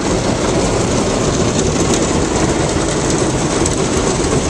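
Ryko SoftGloss XS car wash brushes scrubbing against the car with water spraying, heard from inside the car as a loud, steady wash noise.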